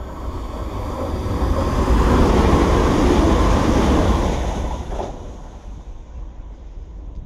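First TransPennine Express diesel multiple unit running through the station at speed without stopping. Its rumble and rush swell over a couple of seconds, peak as it goes by, and fade away quickly about five seconds in.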